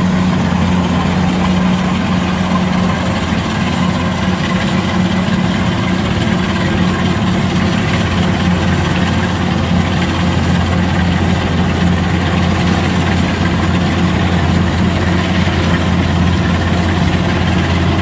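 Kubota DC-105X combine harvester's diesel engine running steadily while the machine cuts rice: an even, deep engine hum with a constant mechanical noise over it.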